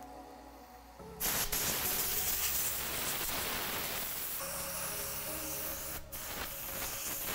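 Compressed air from a compressor's blow nozzle hissing loudly, blowing dust out of the inside of a sneaker. It starts about a second in and breaks off briefly about six seconds in, over background music.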